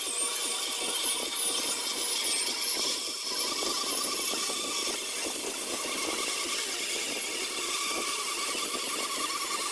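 Handheld electric power sander running against the raised panels of a solid wood door, a steady whir with a high whine that wavers in pitch as it is worked over the wood.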